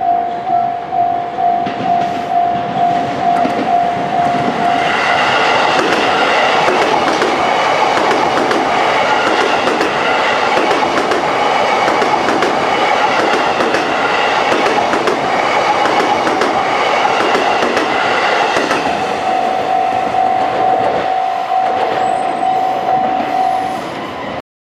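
A level-crossing warning bell dings about one and a half times a second. Then a TWR 71-000 series electric train passes over the crossing for about fourteen seconds, its wheels clacking over the rail joints. The bell rings on after the train has cleared and stops shortly before the end.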